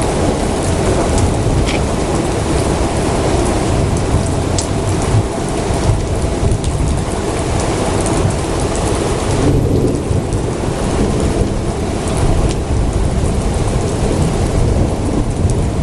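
Thunderstorm: heavy rain falling, with a continuous low rumble of thunder beneath it.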